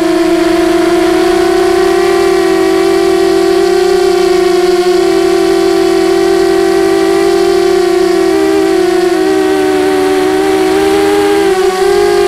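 Brushless motors and propellers of a 250-size FPV quadcopter (DYS 1806 2300KV motors) whining steadily in flight. The pitch drops a little for a couple of seconds near the end, then rises again as the throttle changes.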